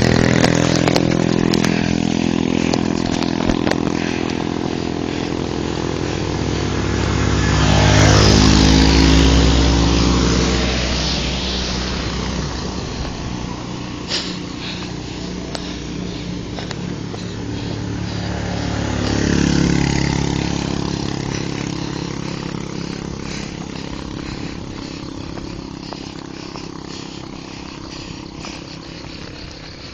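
A motor vehicle's engine running close by. It swells louder twice, about eight seconds in and again near twenty seconds, as vehicles pass, then fades toward the end.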